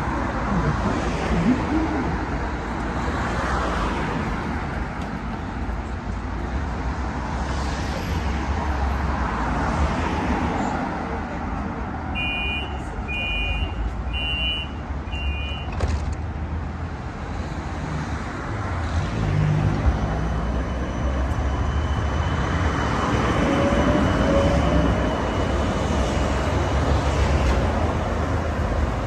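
Steady street traffic and tram noise at a city tram stop. About twelve seconds in come four short, evenly spaced high beeps, and later a thin steady high whine sits over the rumble for several seconds.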